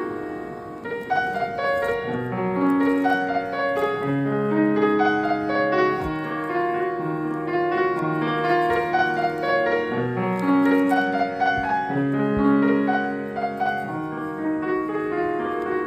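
Background piano music: a gentle melody over sustained lower notes.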